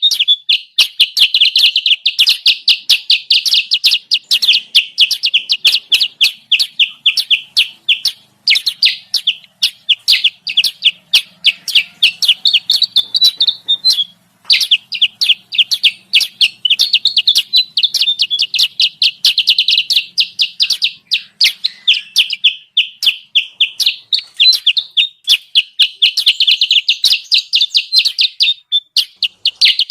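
Bird-lure recording of a kutilang sutra (a bulbul) calling: a fast, continuous chatter of sharp high chirps, several a second, broken by brief pauses about 8 and 14 seconds in.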